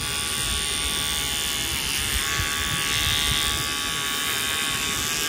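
Oster cordless pocket trimmer, a small AA-battery pet clipper, buzzing steadily as it trims the hair inside a dog's ear.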